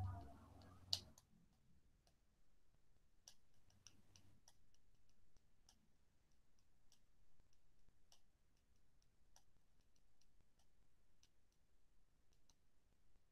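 Near silence with faint, irregular clicks scattered throughout. A low hum at the start stops about a second in, ending with one sharper click.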